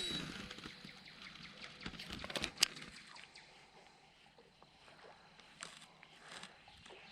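A few sharp clicks and light handling noises about two to three seconds in, from a fishing rod and reel being worked during a cast and retrieve, over faint outdoor ambience.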